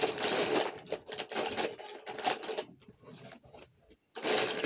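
A colouring tool scratching back and forth on a colouring-book page in quick, dense strokes. The strokes thin out past the middle, and a loud run of strokes starts again near the end.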